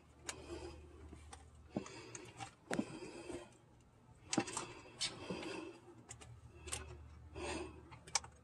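Hands cinching a plastic zip tie around a stretch belt on the crankshaft pulley: scattered light clicks and rubbing, faint, over a low steady hum.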